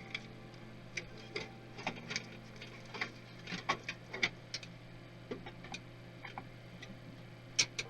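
Irregular small clicks and taps of parts and tools being handled while a desktop PC is taken apart, over a steady low hum.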